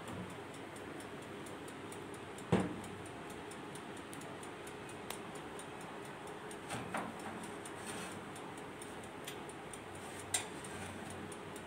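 Steady mechanical ticking of the electric oven's timer. A sharp metallic clank comes about two and a half seconds in as the oven door is opened, and lighter knocks follow later as the cake tin is moved on the metal oven rack.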